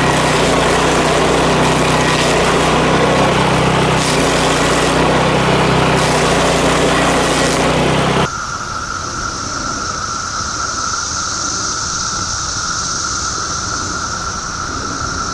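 Power King stump grinder's engine running steadily at speed, cutting off suddenly about eight seconds in. After that, a steady droning chorus of cicadas.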